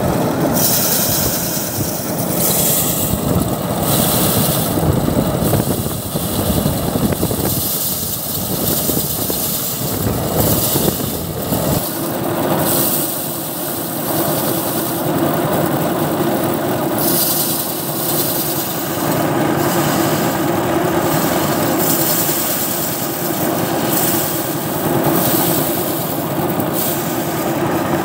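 Small Chinese engine running steadily, driving a drum thresher as bundles of rice are fed into the spinning drum, with rushes of rustling and thrashing as the straw and grain are beaten off. About twelve seconds in, the running note settles into a steadier, higher hum.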